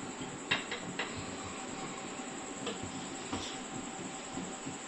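Serving spoon knocking and scraping against the pot as cooked rice pulao is dished out: a few light clicks and scrapes over a steady background hiss.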